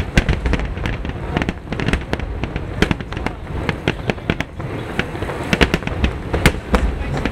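Finale barrage of aerial firework shells bursting: many sharp bangs in quick succession over a continuous low rumble.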